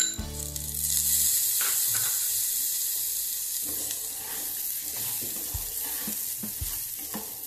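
Rice and green peas frying in oil in a pressure cooker, sizzling as the peas go in and are stirred with a wooden spatula. It opens with a clink. The sizzle swells about a second in and slowly eases, with light scraping knocks of the spatula near the end.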